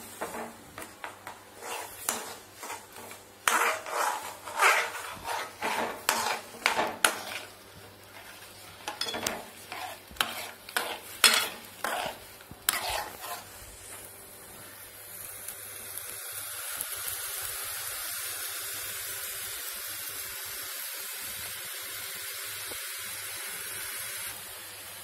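Steel spoon stirring and scraping against a metal kadai as lumps of jaggery dissolve in water, in quick irregular clinks. About halfway through the stirring stops and a steady hiss of the jaggery syrup boiling takes over.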